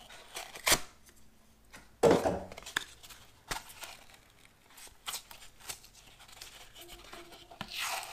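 Drywall being snapped along a scored line and the strip of gypsum core peeled off the face paper, leaving a paper flange for a California patch: a few sharp snaps, the loudest about two seconds in, and tearing near the end.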